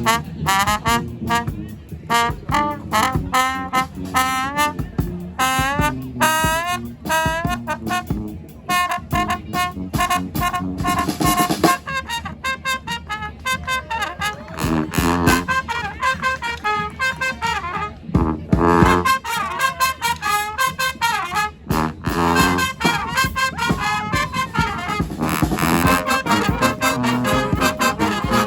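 Street brass band playing live: trombones and trumpets carry a fast tune in quick runs of notes, over steady sharp percussive hits.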